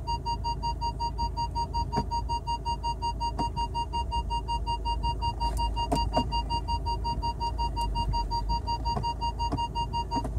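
A car's electronic warning chime beeping rapidly and steadily, over a low engine idle and occasional clicks of the automatic gear selector being moved through its positions. The beeping cuts off near the end as the selector is returned to Park.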